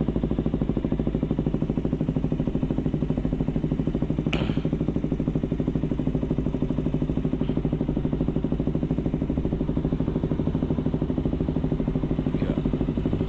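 KTM RC 200's single-cylinder engine idling steadily through a Yoshimura aftermarket exhaust, a little loud and a bit bassy but not harsh.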